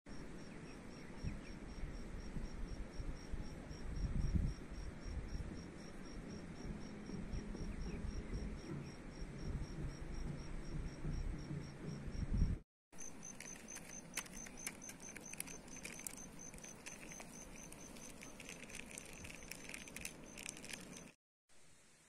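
Insects chirping in a steady, rapid, high-pitched pulse of about five chirps a second, over a low rumble. The sound drops out briefly about halfway; the chirping then returns a little higher, with scattered faint clicks.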